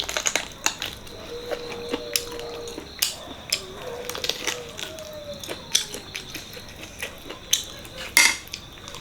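Close-up eating sounds: scattered sharp clicks, smacks and clinks of chewing and of utensils against a plate, the loudest about eight seconds in.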